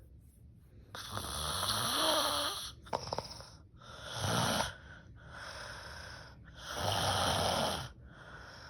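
A sleeping woman snoring loudly: three long snores roughly three seconds apart, with quieter breathing between them.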